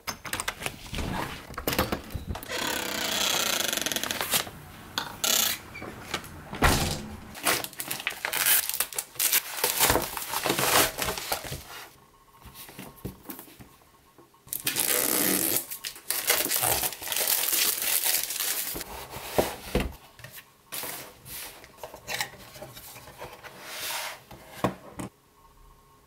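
A cardboard product box and its packaging being handled and opened: irregular rustling, scraping and tearing, with sharp clicks and knocks. The longest tearing and scraping stretches come about three seconds in and again about half way through.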